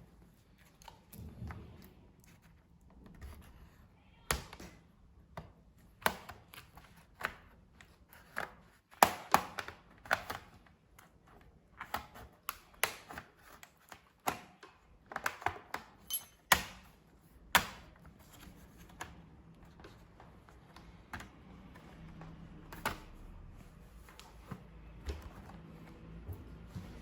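Irregular sharp clicks and taps of hard plastic and small metal parts being handled while a laptop is taken apart, coming thickly for a while and then thinning out to a few near the end.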